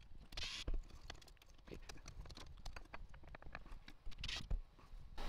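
Small clicks and light taps as a kitchen faucet is handled and turned over, its metal body and supply lines knocking lightly, with a short scraping rustle about half a second in and again about four seconds in.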